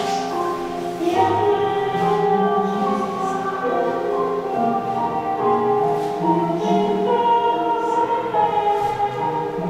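Music for a contemporary dance piece: slow choral singing over sustained chords, the notes held and changing every second or so.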